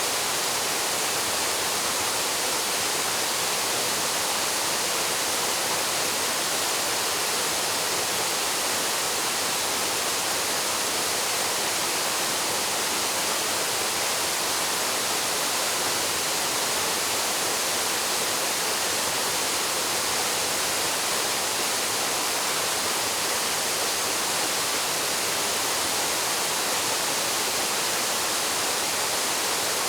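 Paraeso Falls, a mountain waterfall, pouring steadily: an even, unbroken rush of falling water, bright and hissy with little low rumble.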